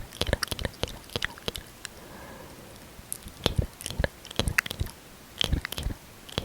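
Close-miked lip smacking: sticky clicks and pops of lips pressing together and parting, in quick clusters with a quieter pause of about a second and a half near the middle.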